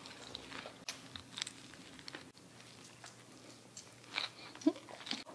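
A person biting into and chewing a vegan burger on a sesame bun: scattered soft crunches and wet mouth clicks, the loudest two a little past four seconds in.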